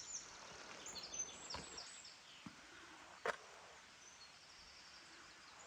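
Birds singing short, high, quickly repeated chirping phrases over a steady outdoor background hiss, with one sharp click a little over three seconds in.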